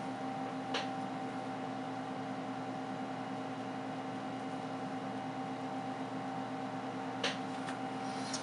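Steady machine hum made of several steady tones over a faint hiss, with a few light taps, one about a second in and two near the end.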